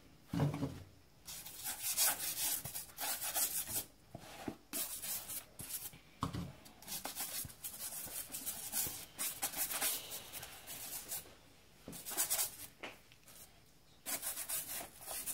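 Toothbrush scrubbing the wet upper of a black Nike trainer with baking soda solution: quick bristly strokes in runs, with short pauses between them.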